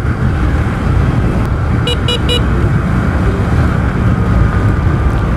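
Motorcycle riding at road speed: a steady rumble of engine and wind noise, with three quick horn beeps about two seconds in.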